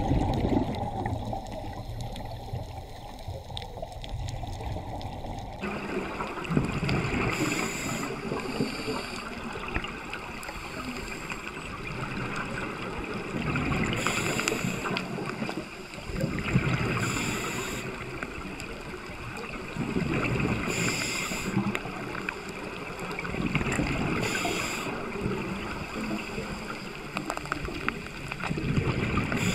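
Underwater recording of scuba diving: the steady wash of the water with a bubbling rush every three to four seconds, the rhythm of divers breathing out through their regulators.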